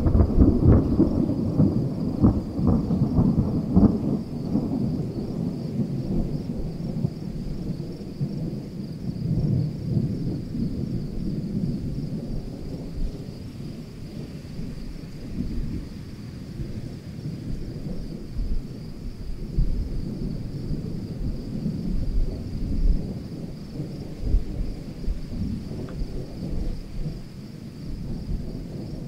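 Thunder from a supercell thunderstorm rumbling, loudest in the first few seconds and then dying down to a low, uneven rumble that swells now and then.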